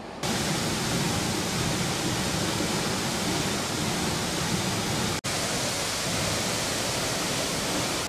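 Steady rush of a waterfall: a dense, even hiss of heavy falling water, with a split-second dropout a little after five seconds in.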